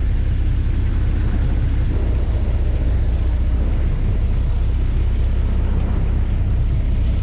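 A fishing boat's engine running with a steady low rumble.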